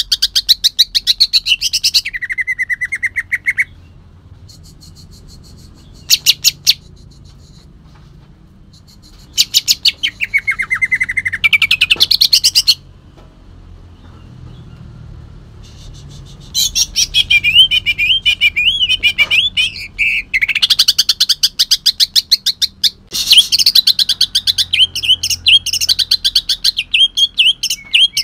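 Kalimantan green leafbird (cucak ijo) singing in loud, harsh bursts of rapid repeated notes. The phrases last from under a second to about six seconds, with pauses of a few seconds between them. The song is laced with imitations of the long-tailed shrike.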